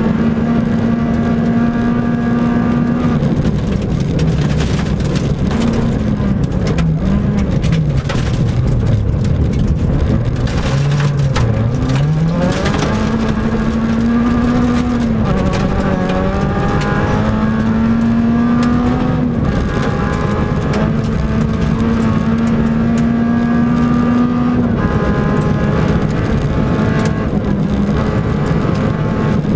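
Peugeot 106 rally car's engine heard from inside the cabin on a gravel stage. It is held at high revs, falls away and wavers as the driver comes off the throttle for a few seconds, then revs hard back up and pulls through several upshifts. Loose gravel rattles and hisses under the car throughout.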